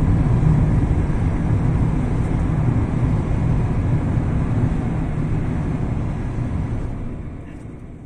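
Car driving through a road tunnel, heard from inside the cabin: a steady low rumble of tyre and engine noise that fades out near the end.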